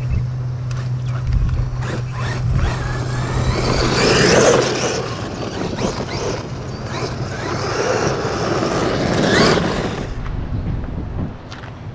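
Arrma Outcast 8S EXB RC truck's brushless motor whining up in pitch twice as it is throttled, with scraping and knocks from its tyres and body through dirt and brush.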